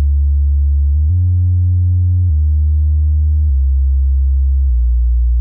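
Low synthesizer tone from an oscillator voice run through two Noise of Antimatter Subshaper modules in series. The first adds subharmonics, and the second, clocked, makes a pattern with its clock dividers. The deep tone steps to a new pitch about every second.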